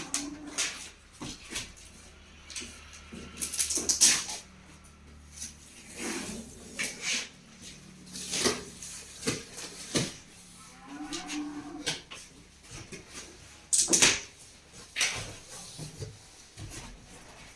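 Irregular rustling, clicks and knocks of packaging and a large appliance being handled during an unboxing, louder bursts about 4 and 14 seconds in. An animal's low call sounds twice, at the start and about 11 seconds in.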